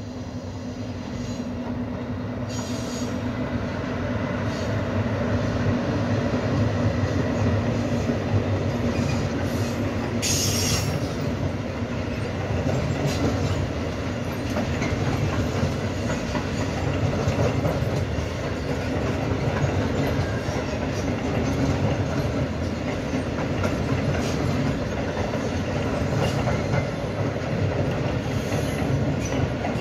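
Freight train passing close by: the locomotive approaches and the sound swells over the first few seconds, then a long string of covered freight wagons rolls past with a steady rumble and clatter of wheels on rail. A brief high-pitched wheel screech comes about ten seconds in.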